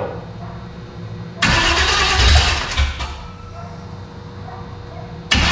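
Chevy 350 V8 being cranked over by its starter for about a second and a half without catching and running. It is cranked again near the end.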